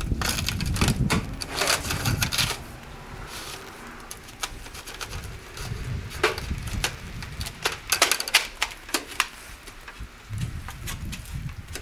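Thin metal fascia trim clicking, tapping and rattling against the wood framing as it is lifted onto a soffit corner and pressed into place, in quick clusters of clicks early on the ladder and again a few seconds later.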